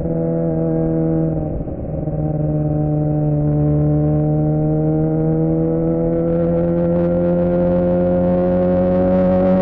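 2007 Suzuki GSX-R600's inline-four engine through a Yoshimura R11 exhaust, riding under way. Its pitch drops with a brief dip about one and a half seconds in, as on an upshift, then climbs slowly and steadily as the bike gathers speed.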